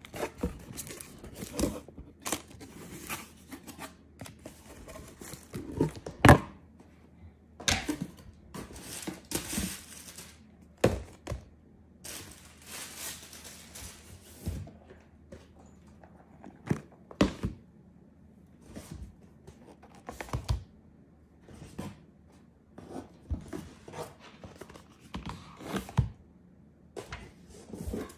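Cardboard boxes being handled and unpacked: a string of knocks and thuds as boxes are bumped and set down on a table, with short stretches of paper and cardboard rustling in between.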